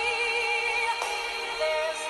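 Background music with a sung melody: held, wavering vocal notes over sustained chords.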